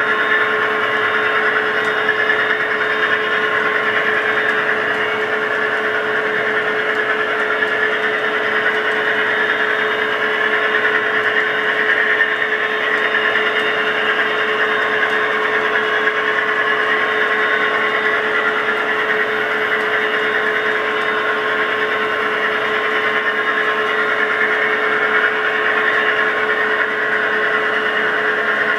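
Model diesel locomotive's DCC sound decoder playing a steady diesel engine running sound through the model's small speaker, with a constant droning tone.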